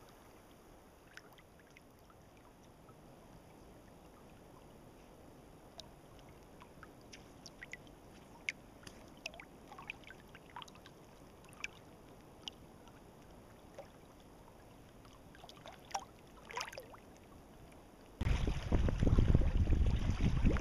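A quiet background with faint, scattered light ticks and small splashes, then a sudden loud rush of wind buffeting the microphone about two seconds before the end.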